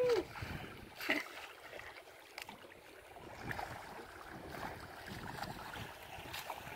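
Faint wind and sea water moving around a wooden boat at sea, with a few soft knocks, the first about a second in. A person's rising-and-falling whoop dies away right at the start.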